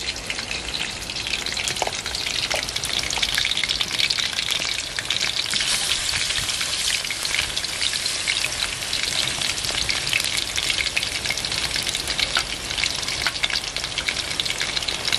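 Chicken wings frying in hot oil in a pan: a steady sizzle with dense crackling.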